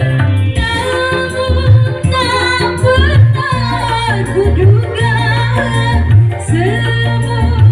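Music with a singing voice over instruments and a heavy, pulsing bass; the voice comes in about half a second in.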